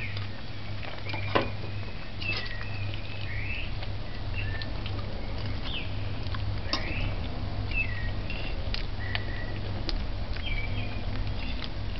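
A metal fork or spoon moving through stew on a ceramic plate, with light taps and scrapes and short, high squeaky chirps scattered throughout, over a steady low hum.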